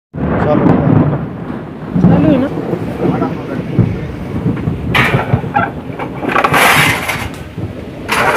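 Stainless-steel utensils clattering as they are handled, with a ringing metallic clang just before the end, over a low rumbling noise.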